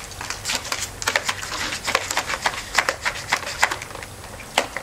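Plastic toy water-gun triggers clicking rapidly and irregularly as they are pumped over and over, the guns dry and not squirting.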